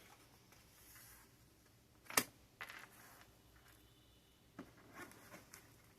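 Near quiet room tone broken by a few faint clicks and taps, the sharpest one about two seconds in.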